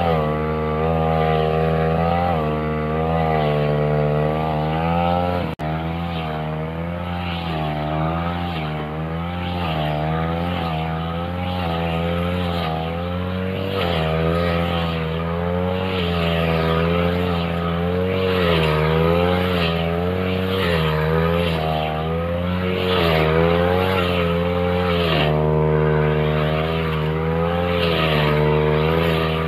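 Backpack two-stroke brush cutter with a metal blade running at high revs. Its engine pitch rises and falls again and again as the blade is swung through thick grass and takes load.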